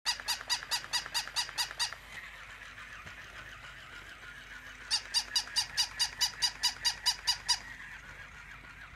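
Battery-powered walking plush toy dog giving rapid electronic yaps, about five a second, in two runs: one of about two seconds at the start and a longer one starting about five seconds in. Its small motor whirs steadily between the runs as it walks.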